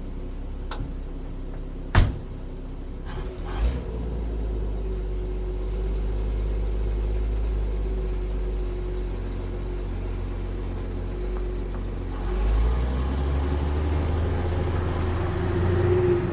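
1965 Ford F100's 300 straight-six running steadily, clear of its flooding. A sharp knock comes about two seconds in. The engine sound grows fuller at about four seconds and rises in revs near the end.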